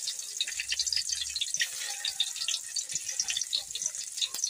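Garlic frying in smoking-hot oil in a wok: a steady sizzle full of small crackles and pops.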